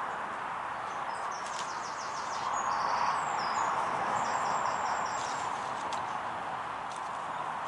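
Birds singing high, quick chirps and trills for a few seconds, over a steady rushing background noise.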